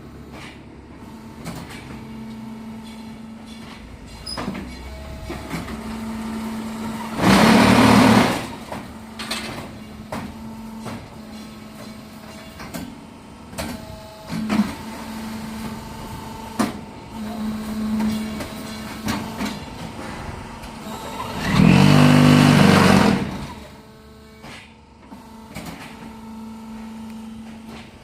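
QTJ6-15 concrete block making machine running through its cycle: a steady low hum with scattered clanks and clicks, broken twice, about fourteen seconds apart, by a loud buzzing burst of one to two seconds as the vibrating mould compacts the concrete.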